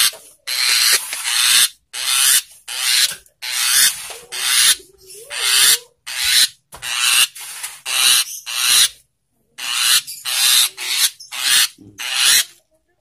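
Javan myna (jalak kebun) giving harsh, rasping begging calls over and over, about one every 0.7 s, as it is hand-fed worms.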